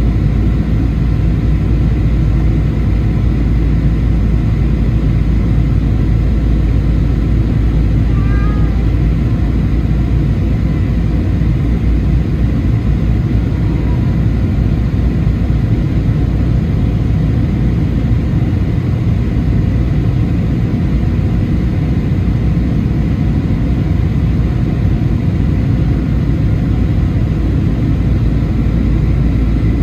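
Steady roar inside the cabin of a Boeing 737-800 on approach, from its CFM56 turbofan engines and the air rushing past the fuselage, heard from a seat over the wing.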